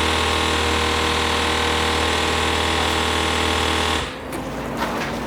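A motorised tool buzzing steadily at a constant speed, then cutting off abruptly about four seconds in.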